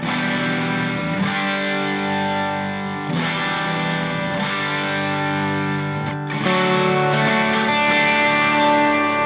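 Background music: distorted electric guitar chords.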